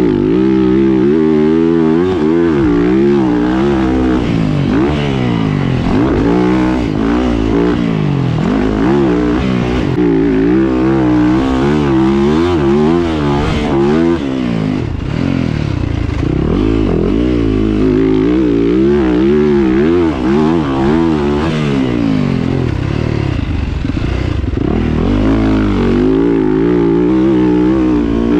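2022 Yamaha YZ450F's 450cc single-cylinder four-stroke engine being ridden hard on a dirt track, its pitch rising and falling over and over as the throttle opens and closes through gear changes, heard from the rider's seat.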